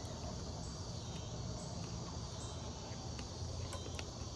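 Crickets chirring steadily, with a low hum underneath and a few faint clicks.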